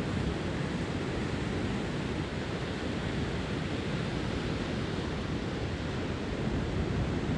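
Ocean surf washing onto a beach: a steady, even rush of breaking waves with no single crash standing out.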